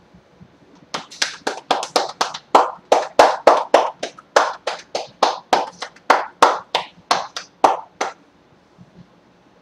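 Hands striking a person's back in quick percussive massage strokes (tapotement), about four or five slaps a second, starting about a second in and stopping about a second before the end.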